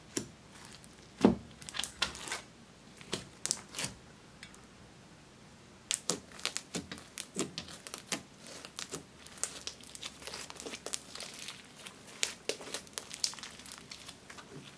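Soft pink slime with small beads mixed in, kneaded, pressed and stretched by hand, giving irregular sticky crackles and clicks, with a quieter lull of a second or so about a third of the way through.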